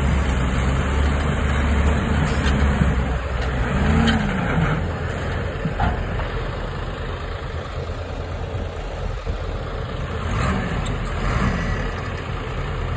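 Large tractor's diesel engine working hard under load as it drags an earth scraper through soft dirt, its pitch shifting about four seconds in and then settling to a lower, steadier run.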